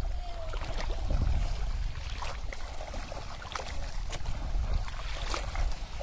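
Wind rumbling on the microphone, with scattered small splashes of water as people wade through a shallow pond hauling a fishing net.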